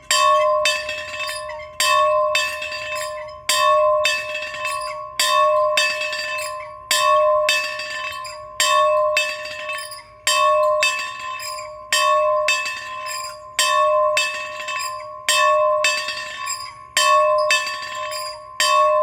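A large bell rung over and over in a steady rhythm, its loudest strokes coming about every 1.7 seconds. Each stroke rings on with a clear, steady tone until the next.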